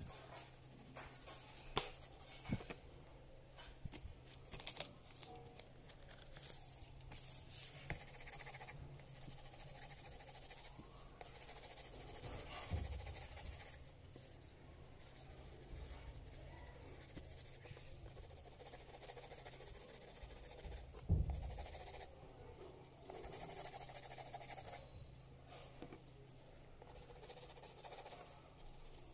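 Coloured pencil scratching across paper in short stretches of shading, with a few soft knocks, the loudest about 21 seconds in. A faint steady low hum sits underneath.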